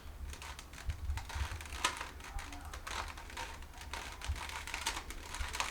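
Rubik's Cube layers being twisted by hand, giving irregular plastic clicks and rattles. The cube is sticking and not turning freely, which the solver calls "like half broken".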